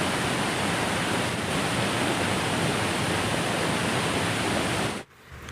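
Waterfall: a steady rush of falling water that cuts off abruptly about five seconds in.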